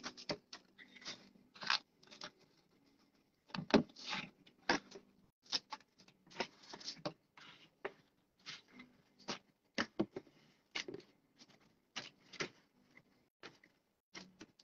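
Irregular clatter of taps, knocks and scrapes from cardboard pizza boxes being handled on a counter while pizzas are boxed, with one sharper knock about four seconds in.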